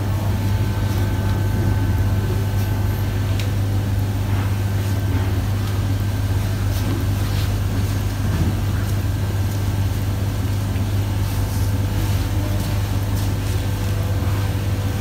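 A steady low hum throughout, with a few faint rustles and scrapes as a gauze roller bandage is unrolled and wrapped around a plaster splint.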